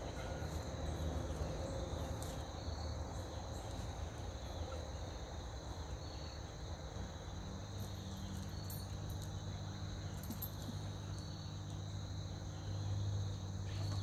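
Insects trilling steadily in the background, with a brief higher chirp every few seconds, over a low steady rumble and a few faint crackles.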